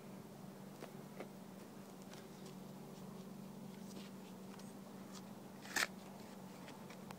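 A plug of turf and soil pressed back into a freshly dug hole by hand, with a few faint soft clicks and rustles, then one short sharp knock near six seconds in. A faint steady low hum runs underneath.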